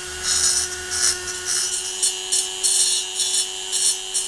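Flexible-shaft rotary grinder running with a small bit grinding inside the exhaust port of an aluminium motorcycle cylinder block. The tool's steady whine is broken by repeated short scraping bursts as the bit cuts away rough casting excess.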